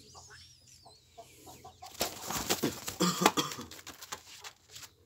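Egg-bound hen clucking while held in a man's hands, with a burst of loud rustling and scuffling of feathers about two seconds in as she struggles and is shifted.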